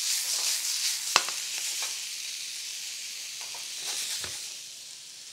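Red bell pepper and red onion sizzling in a sauté pan, the sizzle slowly growing quieter. A single sharp clink sounds about a second in.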